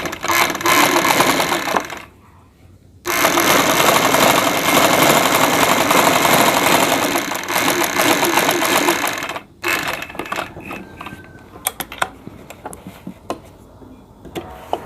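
Black domestic sewing machine stitching a test seam in two runs: a short burst, a brief pause, then a longer stretch of about six seconds. Afterwards come quieter scattered clicks as the machine stops. The test follows tightening the upper thread tension to stop the bobbin thread bunching under the fabric.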